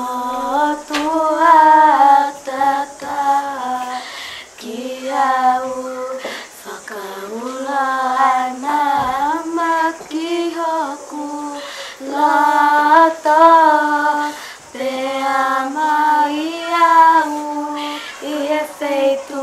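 A child singing a slow melody alone, with no accompaniment, in held phrases broken by short pauses for breath.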